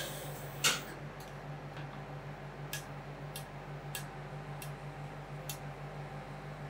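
Metal spatulas clicking and scraping on the steel cold plate of a rolled ice cream machine. Two louder scrapes come in the first second, then single sharp taps follow every half second to a second, over a steady low hum.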